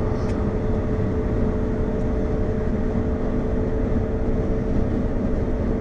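Steady road and engine rumble inside a moving car's cabin, with a constant low hum and no breaks.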